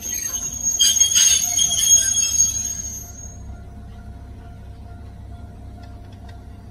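Electric train braking as it pulls into a station platform, its brakes squealing in several high, shrill tones for about three seconds. It then settles into a quieter steady hum as it comes to a stop.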